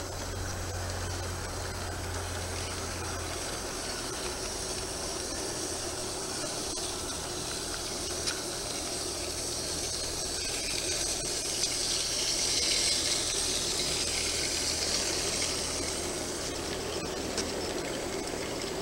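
G-scale model freight train rolling along garden track: a steady rushing hiss of wheels on rail that swells as the boxcars pass close, with a couple of faint clicks.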